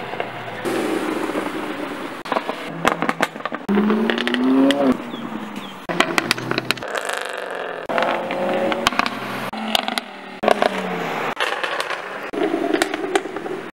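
Sports-car exhausts crackling and popping as cars rev and accelerate away, in a run of short clips joined together. Engine notes climb in pitch and are broken by many sharp pops.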